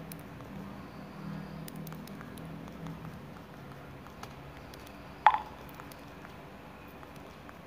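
Quiet room noise with a faint low hum in the first few seconds, broken once by a single sharp click about five seconds in.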